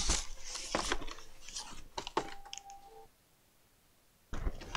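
Packaging being handled to lift a boxed oscilloscope out: rustling and crinkling with sharp clicks and knocks. The sound cuts out abruptly for about a second near the end, then the handling noise comes back.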